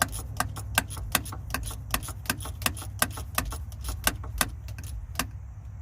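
Sharp metallic clicks, about three a second, as a 5/32 Allen key turns out the loose bolt holding a truck's clutch switch; the clicks stop shortly before the end. A steady low rumble runs underneath.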